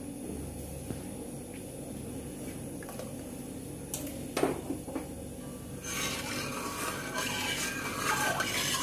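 A metal ladle stirring mutton stock in a large aluminium pot, scraping and clinking against the pot, starting about six seconds in. Before that there is a quiet steady background with a couple of light knocks about four seconds in.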